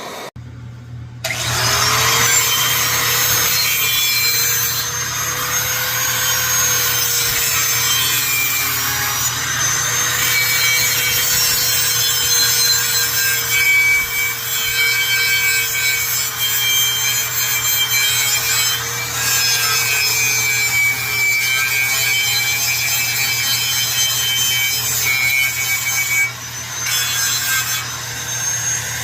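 Two vintage pressurized liquid-fuel camp stoves burning at full flame after priming: a steady loud hiss with a faint steady tone under it, starting about a second in.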